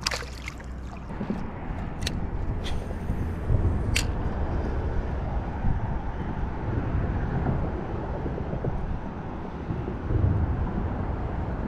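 A released smallmouth bass splashes back into shallow river water, followed by a steady low rumble of wind on the microphone and flowing water, with a few sharp clicks about two and four seconds in.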